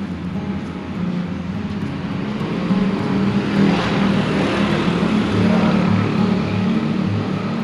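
Small motor scooter riding past close by, its engine swelling to a peak about four seconds in and then fading as it goes.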